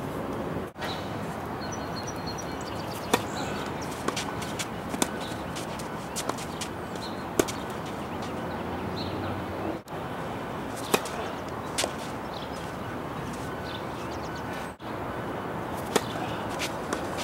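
Tennis balls being struck by rackets and bouncing on the court during play: sharp pops at irregular intervals over a steady background hiss. The sound briefly drops out three times.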